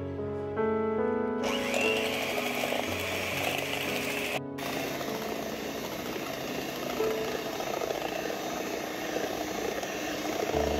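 Electric hand mixer running, its beaters whipping cream in a steel bowl: a steady whirring whine that starts about a second and a half in and breaks off briefly a little after four seconds. Soft background music plays throughout.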